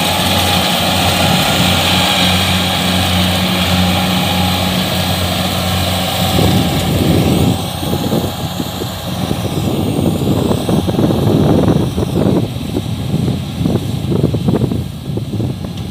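Kubota DC68 rice combine harvester running hard, a steady, loud machine hum with a droning whir. About six seconds in, the steady hum fades and an uneven, gusting low rumble takes over.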